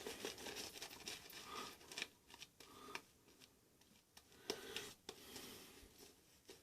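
Faint scratchy swishing of a shaving brush working up lather, followed by a few light clicks or taps about two and four and a half seconds in.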